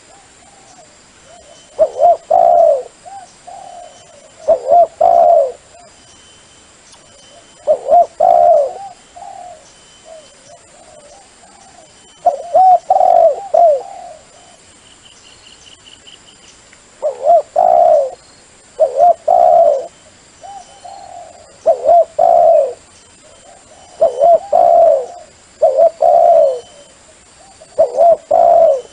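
A dove cooing: short phrases of several quick rolling coos, repeated every two to four seconds.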